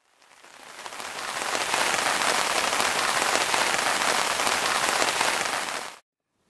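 Rain falling on a tent's fabric roof, a dense steady patter that fades in over the first second or so and then cuts off suddenly near the end.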